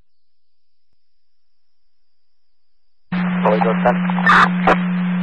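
Police scanner audio: about three seconds of quiet, then a two-way radio transmission keys up with static hiss and a steady low hum, carrying a faint, unintelligible voice.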